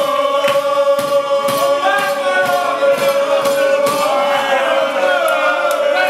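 A group of men chanting one long held note together while clapping in time, about two claps a second: a drinking chant cheering on a man downing a glass of wine.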